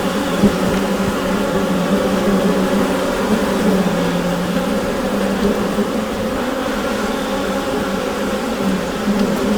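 Dense, steady hum of honeybees massed inside a hive, a constant drone pitched around 200 Hz with overtones above it.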